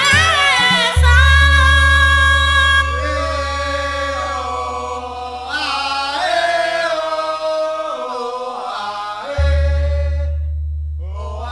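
Traditional Indonesian dance music: a sung, ornamented vocal line with sliding pitch over an ensemble, with a deep gong struck about a second in and again near the end, each stroke ringing on for several seconds.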